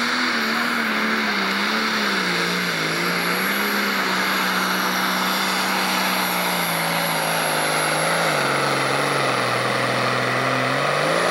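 Turbocharged diesel engine of a John Deere Pro Stock pulling tractor running flat out under load as it drags the weight-transfer sled, with a high steady whine over it. The engine note wavers and sinks steadily as the sled bears down harder, then climbs briefly near the end.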